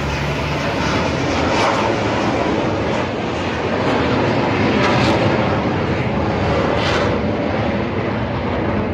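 Aermacchi MB-339 jets of the Frecce Tricolori display team flying past, their turbojet engines making a loud, steady rushing noise.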